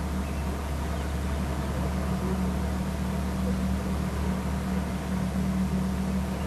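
Steady low hum with a constant hiss over it, with no distinct events.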